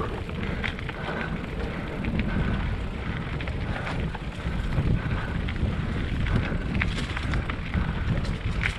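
Wind buffeting the microphone while riding: a steady low rumble of wind and road noise, with a few faint clicks.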